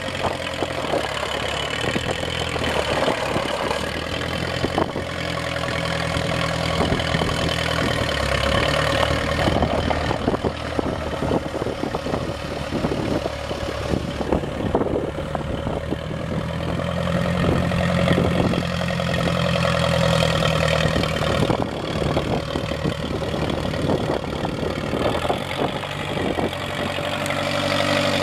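1957 International 350 tractor's 2.9-litre four-cylinder gasoline engine running steadily at low speed while the tractor is driven slowly.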